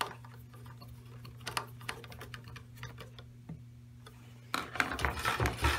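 Scattered small clicks and ticks of cables being handled at a tabletop connectivity box's cable retractors, turning into louder rubbing and clicking about four and a half seconds in. A steady low hum runs underneath.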